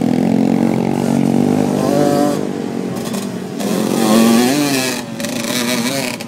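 Off-road motorcycle engines revving and easing off in turn, the pitch rising and falling with the throttle. It is loudest about four seconds in, as a full-size dirt bike passes close.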